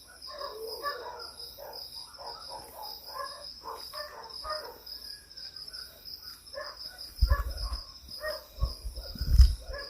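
Crickets chirping steadily in a continuous pulsing trill, under many short, repeated calls from dogs barking and yelping in distress in the distance. Several low thumps near the end.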